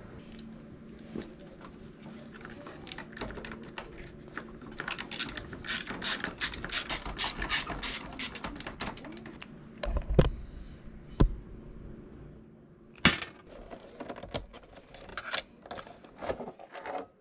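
Hand tools working on a motorcycle: a quick run of sharp ratchet-like clicks lasting a few seconds, then several separate knocks and clunks of metal parts.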